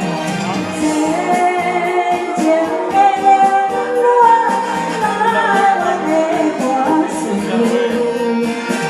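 A woman singing a Taiwanese Hokkien ballad over a karaoke backing track with a steady drum beat; her voice is hoarse and strained on the high notes.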